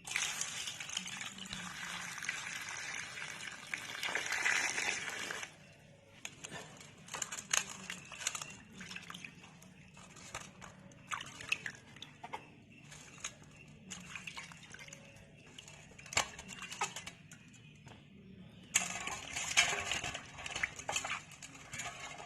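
Close-miked wet handling of cut green mango pieces coated in red chilli masala. About five seconds of dense wet rustling give way to scattered crisp clicks and crackles, and the dense rustling returns near the end.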